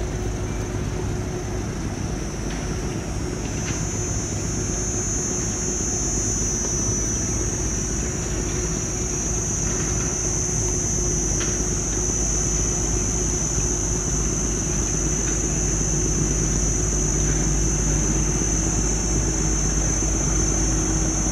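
Diesel engine of a loaded steel river cargo barge passing close by, a steady low drone with a hum that grows slightly louder as it nears. A constant high-pitched insect drone runs over it.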